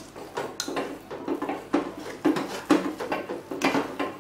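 Wire whisk scraping and knocking against the inside of a hammered metal saucepan as stiff choux-pastry dough is stirred, in quick irregular strokes of a few knocks a second.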